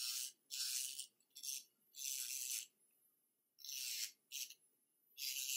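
Electric nail drill with a white safety bit sanding acrylic at the cuticle line in short passes. It makes a hissy rasp in about seven bursts of under a second each, with silent gaps between.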